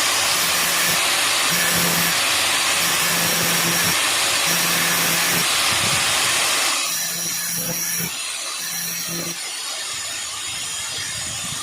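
Electric grinder grinding the raised collar off a steel O-ring motorcycle chain link, flattening it so a thinner chain lock will fit. A steady, harsh grinding hiss that turns lighter and quieter about seven seconds in.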